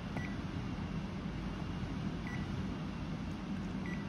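Davis Vantage Vue weather station console giving three short, high key-press beeps as its buttons are pressed, over a steady low background hum.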